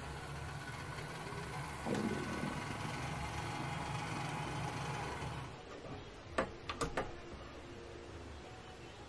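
River Raisin brass S-scale model of a GE 44-ton diesel running on DC: its small electric motor and gearing whir steadily with a low hum, and a brief sound slides down in pitch about two seconds in. The whir stops about five and a half seconds in as the model comes to rest, and three sharp clicks follow about a second later.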